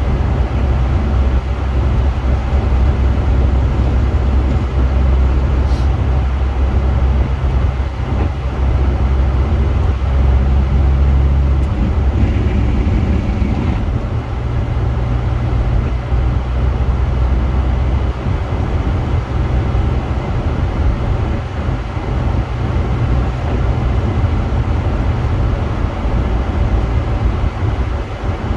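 Honda Accord Sport driving, a steady low engine and road rumble whose pitch shifts about twelve and fourteen seconds in.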